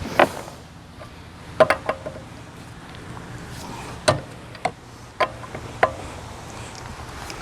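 A string of sharp, irregular clinks and knocks, several with a short metallic ring, as tools and car parts are handled.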